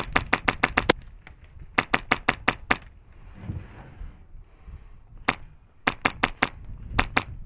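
Airsoft gun firing strings of rapid shots, about seven a second: a burst at the start, another about two seconds in, a single shot a little after five seconds, then a longer burst near the end.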